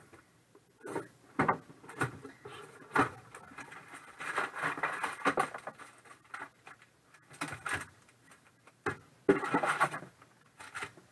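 Cardboard box being opened and card sleeves handled: a few sharp taps and knocks in the first few seconds, then bursts of rustling and sliding packaging.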